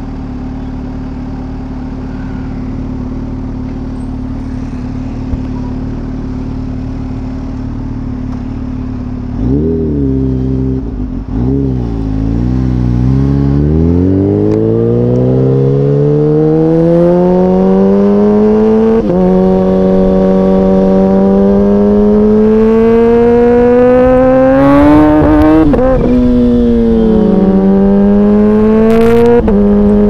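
Kawasaki Ninja H2's supercharged inline-four idling steadily, then blipped a couple of times about ten seconds in. It pulls away hard, its pitch climbing through the gears with sudden drops at three upshifts in the second half.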